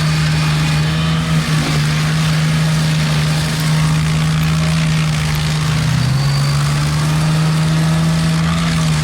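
A machine's engine running steadily at high speed. Its pitch drops a little about six seconds in and stays lower.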